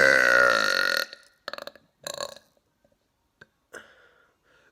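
A man's long, loud, deliberate burp with a wavering pitch, cutting off about a second in; a couple of short, much softer sounds follow.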